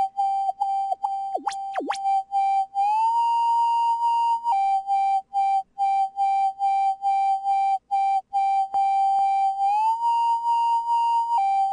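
Software synthesizer (Native Instruments Massive) playing a single bright tone chopped into about four pulses a second. It twice glides up a step and holds there for a second or two before dropping back, and two very fast pitch sweeps dive down and back up about a second and a half in.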